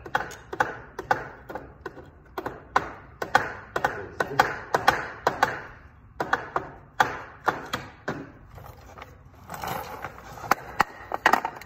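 Irregular metallic clicks, knocks and scraping as the SuperTrapp muffler is worked loose and pulled off a Suzuki DR650's exhaust by hand and tool.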